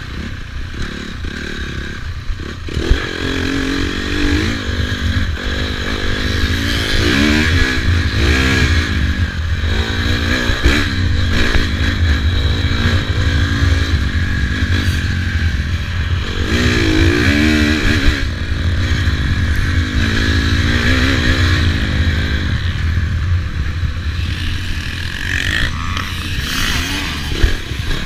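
Dirt bike engine under race load, its revs climbing and dropping again and again as the rider works the throttle through the gears.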